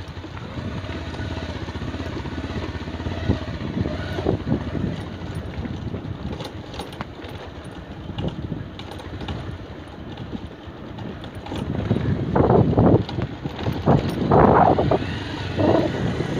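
Motorcycle engine running at low speed over a rough dirt road, with scattered small clicks and rattles. About twelve seconds in, louder irregular gusts of wind noise on the microphone take over.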